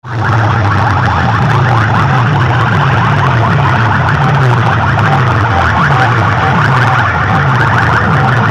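Loud, steady electronic siren-like sweep repeating rapidly, blasted through large DJ horn-loudspeaker rigs in a sound-box competition.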